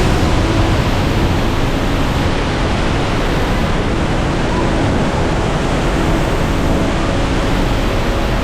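Loud, steady rush of Trümmelbach Falls, glacial meltwater pouring down through the rock gorge.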